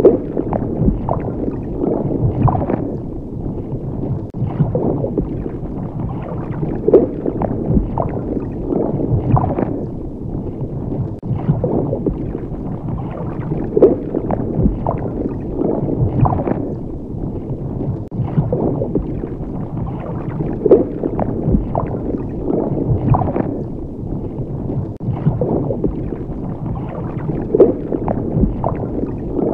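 Underwater ambience of low rumbling with bubbling gurgles, swelling about every two seconds.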